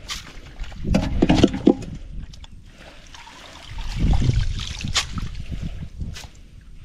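Water sloshing and trickling, broken by two sharp knocks near the end.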